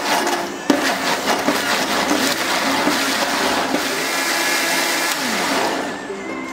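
Electric mixer grinder with a stainless steel jar running, blending bananas with sugar and milk. There is a sharp click about a second in, and the grinding dies down near the end.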